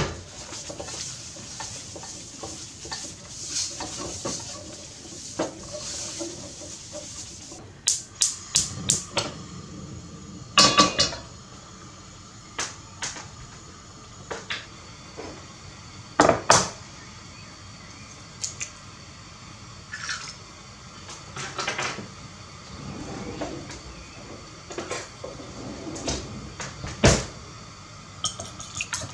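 Scattered clinks and clunks of kitchen utensils and cookware being handled, a dozen or so separate knocks. A steady hiss runs under them for about the first seven seconds, then stops.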